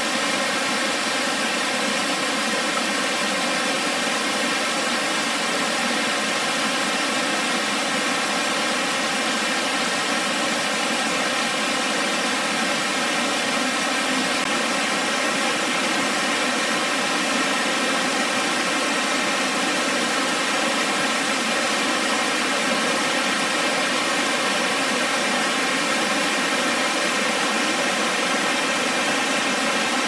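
Water cascading down a tiered waterfall: a steady, unbroken rush with little deep rumble.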